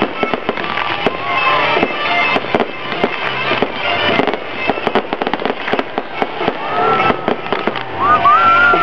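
Fireworks display: a rapid, irregular string of bursting shells and crackling reports throughout.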